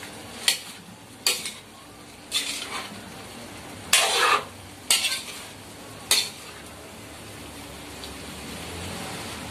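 A ladle scraping and knocking against a metal wok as chunks of pork, potato and carrot are stirred, in about six separate strokes during the first six seconds, the loudest about four seconds in. A steady low sizzle of the frying food runs underneath and is left on its own near the end.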